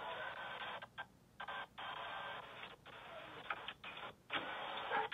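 Steady hiss from a Ring video doorbell's microphone, cut by several brief dropouts to silence.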